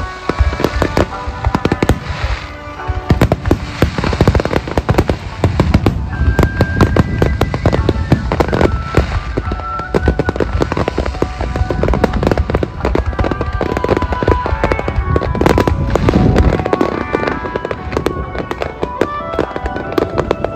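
Aerial fireworks shells bursting in a rapid barrage, with sharp bangs and crackling over a continuous deep booming. The booming is densest through the middle and eases about three-quarters of the way through.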